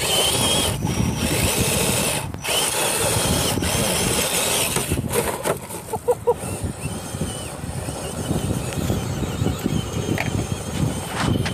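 Electric motor and geartrain of a scale RC crawler whining under load as it climbs a gravel gully. The high whine wavers up and down with the throttle.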